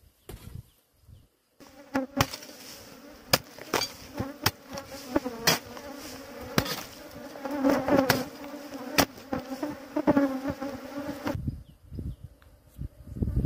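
A swarm of angry stinging insects from a disturbed underground nest buzzing loudly and densely around the microphone, starting about a second and a half in and fading out shortly before the end. Irregular sharp knocks sound through the buzzing.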